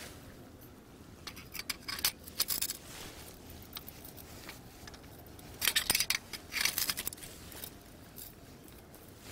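Metal parts of a multi-rod fishing rod holder clinking and rattling as it is adjusted by hand, in two bursts of light metallic clicks: one about a second in and one around six seconds in.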